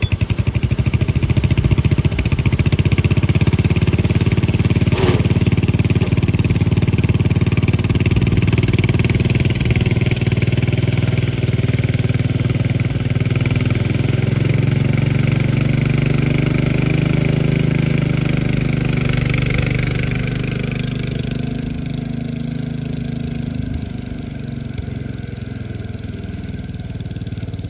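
Cub Cadet 104 garden tractor engine running under load as the tractor, its differential welded solid, tows another machine. The engine note is steady, then eases back somewhat about 20 seconds in.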